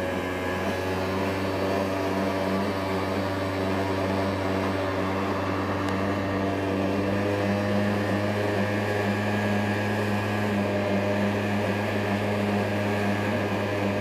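Honda scooter engine running steadily at an even cruising speed, a constant drone.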